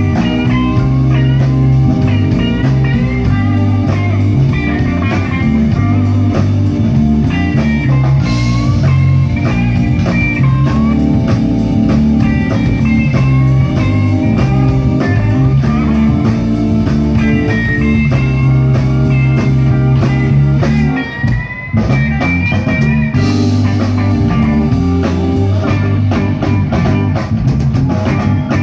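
Live electric blues band playing: a lead electric guitar line with bent, sliding notes over bass and drum kit. The band drops back briefly about two-thirds of the way through, then comes back in.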